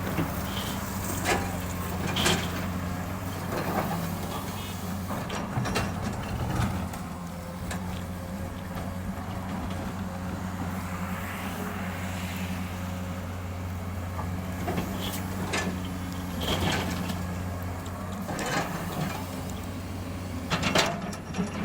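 Excavator's diesel engine running steadily, with sharp clanks and knocks every few seconds as the bucket loads a truck.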